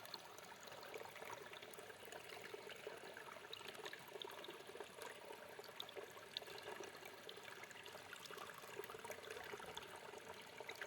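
Mountain stream flowing and trickling over rocks, a steady faint splashing and babbling of water.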